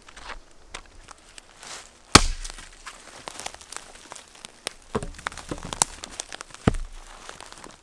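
Hatchet chopping a birch pole on a stump: one sharp chop about two seconds in. It is followed by a scatter of lighter snaps and knocks from footsteps through dry twigs and the pole being handled.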